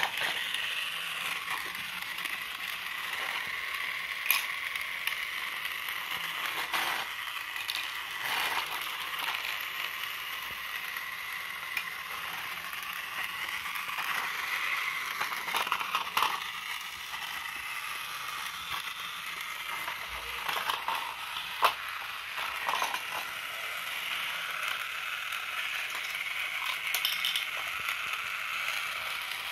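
Battery-powered Tomy Thomas toy trains running on plastic track: a steady high gear whine from the small motor with a rattle of wheels on the track. A few sharp clicks stand out, the loudest about three-quarters of the way through.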